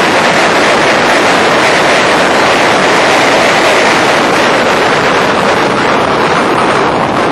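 Wind rush on the onboard microphone mixed with engine noise from a Factory Five Racing Challenge roadster at racing speed: a dense, loud rushing sound with no clear engine note, easing a little near the end as the car slows for a corner.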